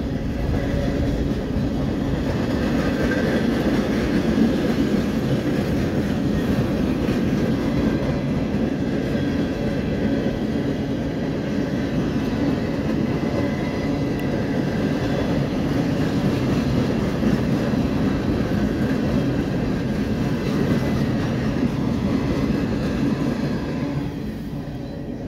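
Freight train cars, mostly empty flatcars, rolling past close by: a steady rumble and clatter of steel wheels on the rails that eases off a little near the end.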